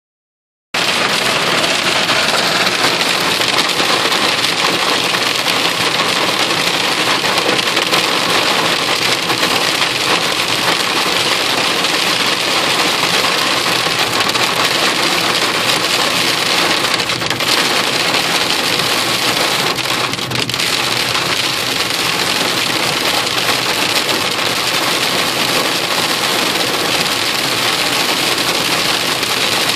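Hail and rain pelting the roof and windows of a car, heard from inside the cabin: a dense, steady patter that starts suddenly just under a second in.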